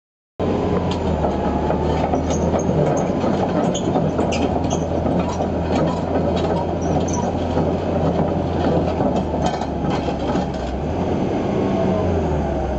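Hitachi ZX280 tracked excavator travelling, its diesel engine running steadily under the clanking and occasional high squeaks of its steel tracks. Near the end the track clatter stops and the engine runs on.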